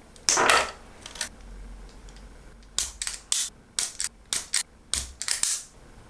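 Flush cutters snipping and stripping a micro servo's thin wires. One loud snip comes near the start, then a quick run of about ten sharp clicks and snaps over the last three seconds.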